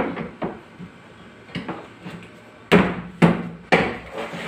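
Plastic inverter battery cabinet top panel being pressed and thumped down by hand to snap it onto the side walls: a few light knocks, then three firm thumps about half a second apart near the end.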